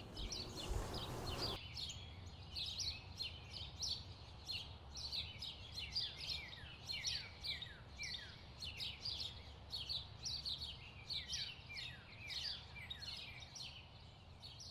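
Faint birdsong: small birds chirping steadily in many short, quick descending chirps, about three a second. A soft hiss underneath cuts off about a second and a half in.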